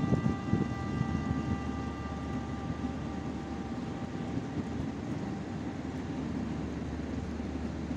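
Steady low machinery rumble, with a ringing tone that fades away over the first three seconds or so.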